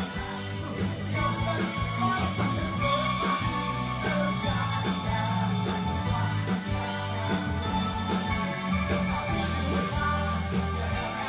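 Band playing a rock-style worship song, with guitar, bass and drums and singing over them.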